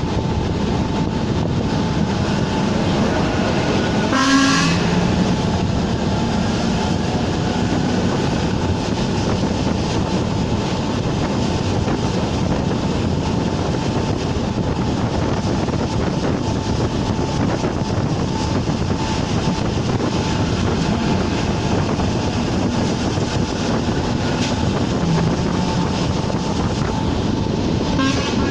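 Czech Railways class 460 electric multiple unit running steadily at speed, a continuous rumble and hiss. A short horn toot sounds about four seconds in, and a fainter one near the end.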